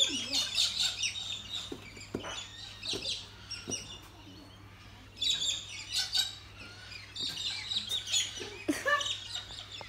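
Small birds chirping and twittering in quick bursts of short high notes, with a few soft knocks in between.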